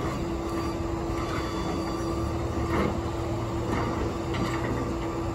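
Flatbed rollback tow truck running with its bed tilted and an SUV on it: a steady mid-pitched whine over a low engine rumble, typical of the truck's hydraulics and winch at work, with a few faint clanks.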